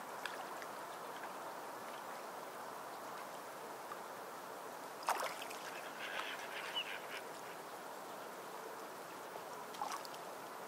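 Fine-tip Sakura Pigma Micron pen scratching steadily on a paper tile, with a few sharp clicks about five seconds in and near the end, and a short burst of squeaking about six seconds in.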